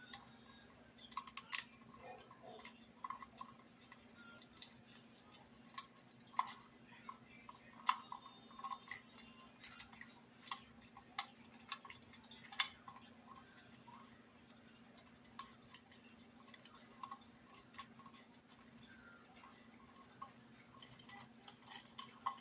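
Moluccan cockatoo chewing and cracking sticks and foraging material with its beak, pulling them from a puzzle box: irregular sharp clicks and crunches, a few louder snaps, over a steady low hum.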